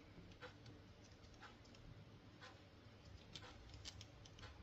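Near silence with faint, scattered light clicks and taps, about one a second, from small model-locomotive parts being handled and fitted during reassembly.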